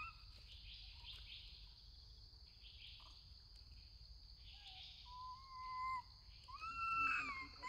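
Steady high drone of forest insects, with macaque coo calls near the end: a short held call just after five seconds, then a louder, longer arched coo with an overtone about seven seconds in.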